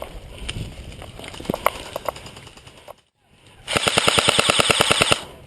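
Airsoft guns firing: scattered single shots, then, after a brief drop-out, a rapid full-auto burst of about a second and a half.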